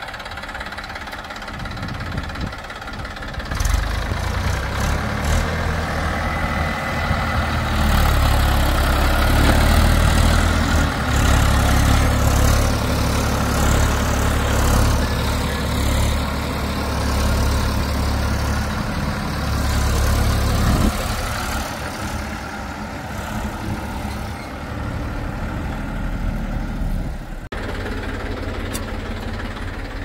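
Massey Ferguson 241 tractor's three-cylinder diesel engine pulling a loaded trolley of soil. It runs quietly at first, then opens up about four seconds in and runs hard under load with a heavy low rumble, easing back about two-thirds of the way through. Near the end the engine sound changes abruptly to a steadier running.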